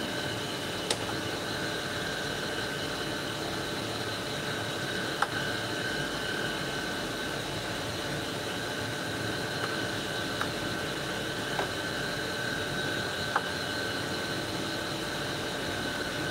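Tool and cutter grinder running steadily: an even hum with a constant high whine, broken by a few faint, light clicks.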